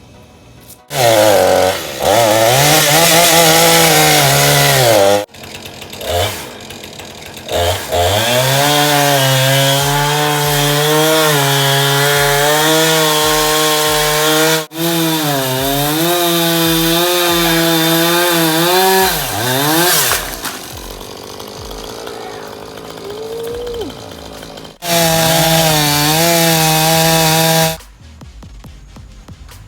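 Husqvarna two-stroke chainsaw run at full throttle in long bursts while cutting through a downed pecan limb, its pitch dipping now and then as the chain bogs in the wood. It drops back about five seconds in and again about twenty seconds in, then revs up once more near the end.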